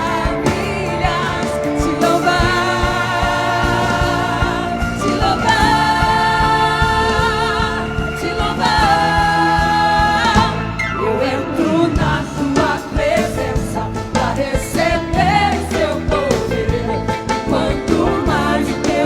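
Gospel praise song performed live: singers with vibrato-held notes over a band with steady bass and drums.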